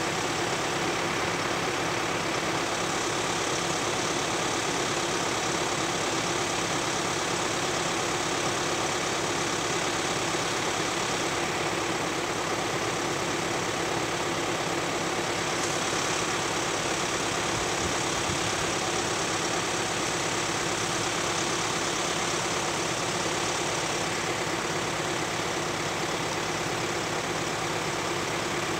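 VW Amarok's engine idling steadily as the ute creeps down a steep, eroded drop.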